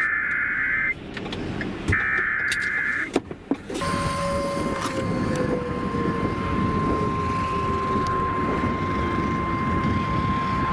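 Emergency Alert System broadcast. It opens with two buzzy warbling SAME data bursts of about a second each, a second apart, the coded header of the alert. Then, just under four seconds in, the steady single-pitch weather alert tone starts and holds, signalling a new severe thunderstorm warning.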